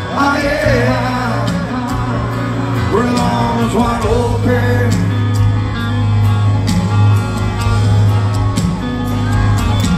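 Live rock band playing in an arena: a male lead vocal over electric guitars, a heavy bass line and drums with frequent cymbal hits, heard from the crowd.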